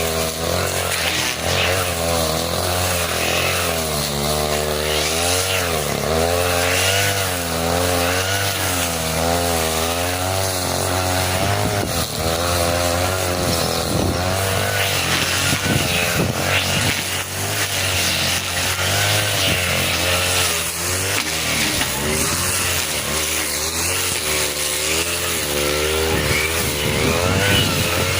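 A 40cc two-stroke brush cutter engine running at high revs, its pitch repeatedly dipping and rising as the 40 cm blade cuts through thick grass.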